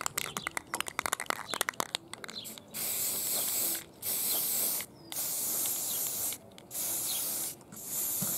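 Aerosol can of Rust-Oleum primer: rapid rattling clicks for about the first two seconds, typical of the mixing ball in a shaken can, then five spray bursts of hiss, each about a second long with short pauses between.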